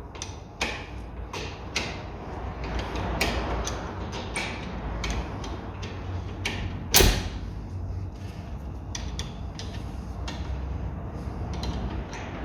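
Spanners working a car's brake caliper bolts loose: scattered metallic clicks and clinks, with one loud clank about seven seconds in, over a low steady hum.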